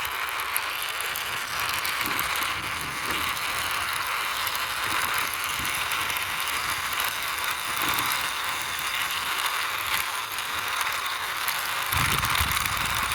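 Toy backhoe rolling along as it is pushed by hand: a steady rattling of its wheels and gears, with small clicks. A low rumble joins in near the end.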